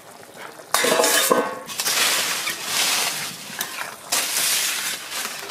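A metal lid scraped off a steel kadai with a brief clatter and ringing about a second in, then a ladle stirring and scraping through the bubbling mutton curry in the pot.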